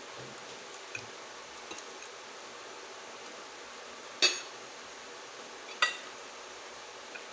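Eating utensil clinking against a dish twice, a sharp ringing clink about four seconds in and another a second and a half later, with a faint tick early and a steady hiss throughout.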